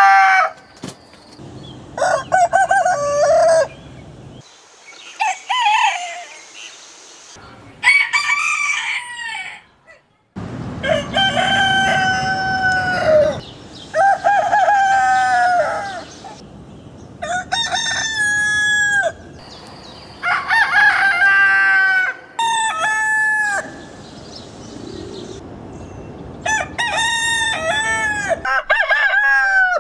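Roosters crowing one after another: about a dozen cock-a-doodle-doo crows from several different birds, each one to three seconds long, falling in pitch at the end, with the background changing abruptly between crows.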